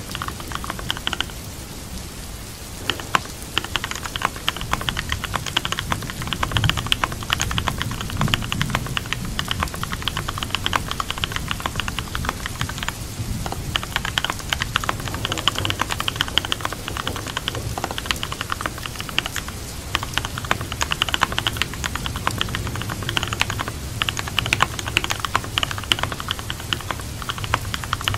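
Typing on a computer keyboard in quick, irregular runs of key clicks with short pauses, over steady rainfall.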